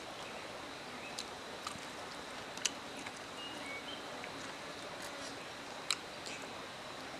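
Steady outdoor background hiss with a few sharp clicks, the loudest about two and a half seconds in, and a couple of brief high chirps.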